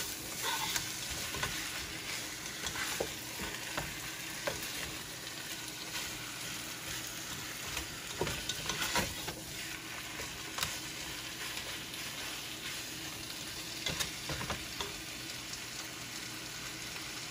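Pork hocks sizzling in oil as they are sautéed with onion, ginger and garlic in a pot, with the scrape and knock of a spatula against the pot as they are stirred now and then.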